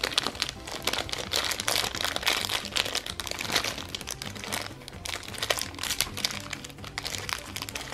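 Clear plastic wrapper crinkling and crackling irregularly as fingers tear it open and pull out a small plastic toy keychain. Background music plays underneath.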